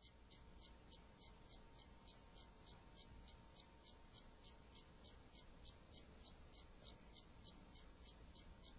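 A clock ticking faintly and steadily, about three ticks a second.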